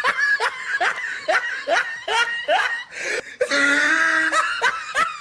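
A person laughing hard in a quick run of short, rising bursts, then a longer drawn-out laugh.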